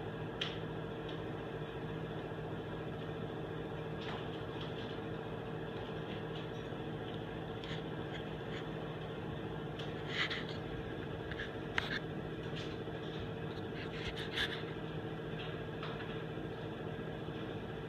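Steady indoor hum holding several pitches, with a few faint, short clicks or taps scattered through it.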